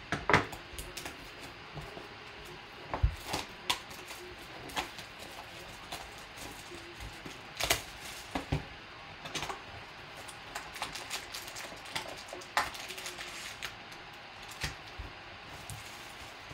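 Cellophane shrink-wrap crinkling and tearing as it is stripped off a cardboard trading-card box, in irregular sharp crackles and clicks. The box's cardboard flap is handled and opened near the end.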